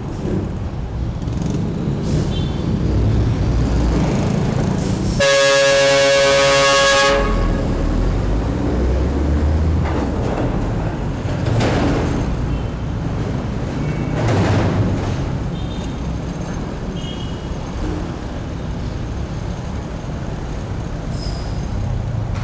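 Motorcycle riding through heavy traffic, with steady engine, tyre and wind noise, as a vehicle horn sounds once for about two seconds about five seconds in. Other vehicles swoosh past a few times later on.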